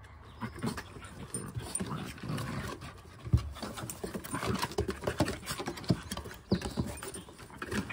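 Three dogs, a French Bulldog, a Rat Terrier and a Mudi, play-fighting roughly: panting and scuffling, with claws clicking and scrabbling on wooden decking and one sharp loud knock about three seconds in.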